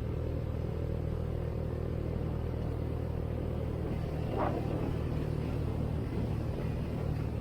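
Motor vehicle running at a steady speed: an even, low engine drone, with one brief louder noise about four and a half seconds in.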